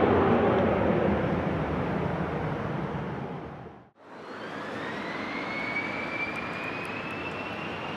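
Business jet engine noise fading away to a brief near-silence about four seconds in. Then another jet's turbine whine comes in and rises steadily in pitch over a steady rush of engine noise.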